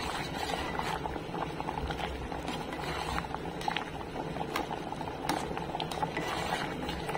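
Pot of rice and spiced water for nasi minyak boiling hard: a steady bubbling with many small pops.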